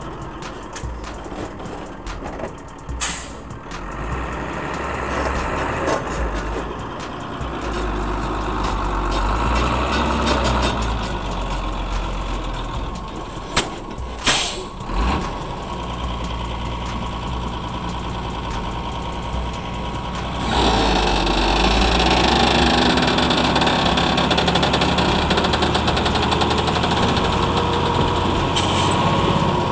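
A truck engine running steadily, with a few sharp spikes of noise about halfway through, then growing louder about two-thirds of the way in.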